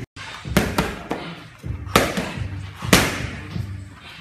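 Punches landing on leather focus mitts: several sharp, irregularly spaced slaps, each followed by a short echo.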